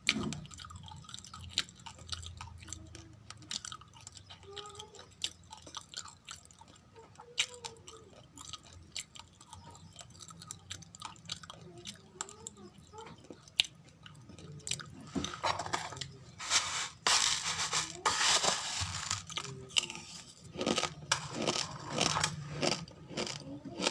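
Raw uncooked rice grains being chewed close to the microphone: many small sharp crunches and clicks, becoming louder and denser for several seconds past the middle.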